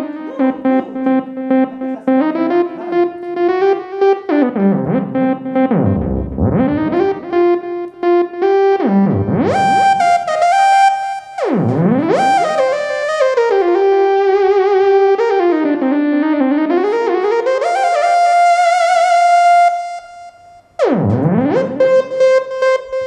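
Casio XW-G1 synthesizer playing a melody on a bright synth preset. Several fast falling pitch sweeps cut between the phrases, a held note wavers with vibrato near the end, and a short gap follows it.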